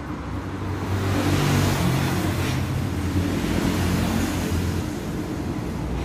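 An engine running with a steady low hum, growing louder about a second in and easing off toward the end.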